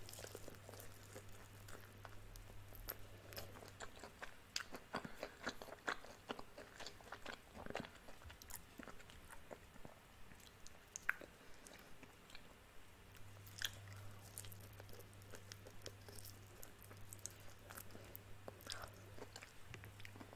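Close-up eating of crispy fried chicken: biting into the breaded coating and chewing, a steady string of small crunches and clicks.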